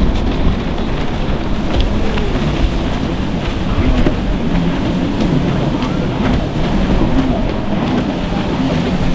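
Stand-up jet ski engine running hard, its pitch wavering up and down, under heavy wind noise on the microphone and the wash of surf.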